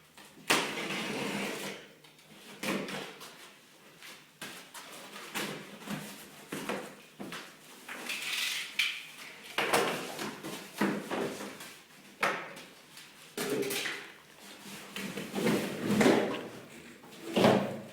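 Cardboard box and packaging being opened and handled: irregular scrapes, rustles and knocks, with a longer rustle about half a second in and louder knocks near the end.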